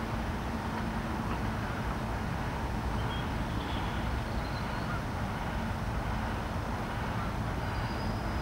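Steady low rumble of a heavy machine running, with a constant hum.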